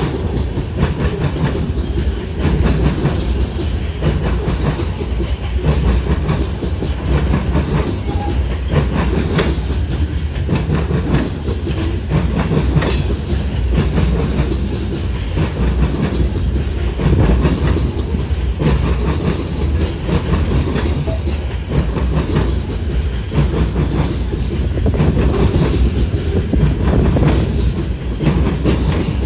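Freight train's hopper and gondola cars rolling past close by: a steady rumble of steel wheels on rail, with a repeated clickety-clack as the wheel sets cross rail joints.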